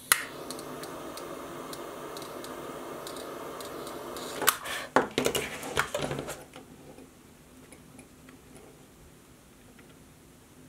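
A butane torch lighter clicks on and burns with a steady hiss for about six seconds, melting the frayed end of a paracord strand. Near the end come several sharp clicks and metal clinks, from the lighter and the steel scissors used to squash the melted end flat.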